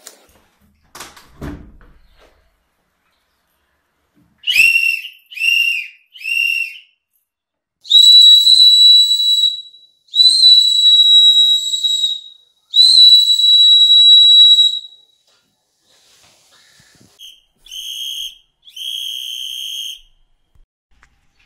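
A whistle blown in blasts: three short toots, then three long held blasts at a higher pitch, then shorter toots again near the end.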